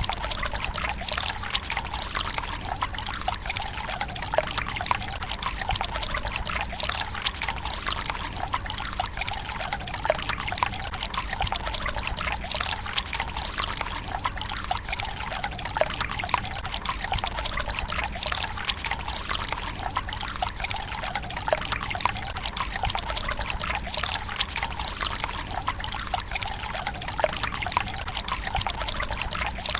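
Water pouring from a bamboo spout into a stone tsukubai basin: a steady splashing trickle full of small droplet patters, unbroken throughout.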